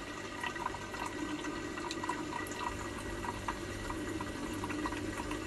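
Steady trickle of a home aquarium's filter, with small scattered clicks and smacks of crab shell being picked apart by hand and chewed.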